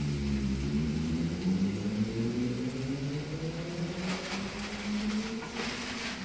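A steady motor-like hum whose tones slowly rise in pitch, with the crinkle of a plastic bag as frozen chopped coriander and parsley are shaken out of it, about four seconds in and again near the end.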